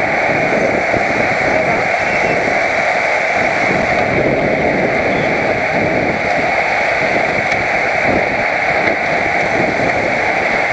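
Steady rush of wind over a helmet-mounted camera's microphone while riding a road bike at speed.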